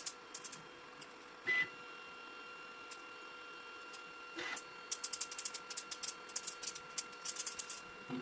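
An Ender-3 V3 3D printer gives a steady high whine while idle, and a run of quick light clicks and taps comes from handling at the machine, densest in the last few seconds.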